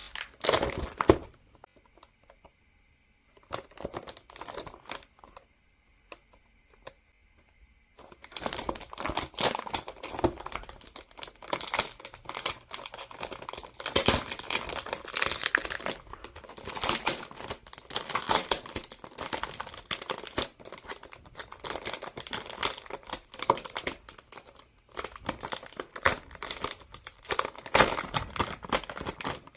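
Packaging crinkling and crackling as it is handled and unwrapped: a few scattered crackles at first, then almost continuous from about eight seconds in.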